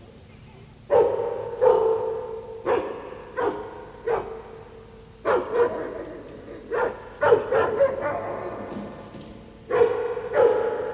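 A dog barking repeatedly: a dozen or so short barks at irregular intervals, starting about a second in, some coming in quick bunches.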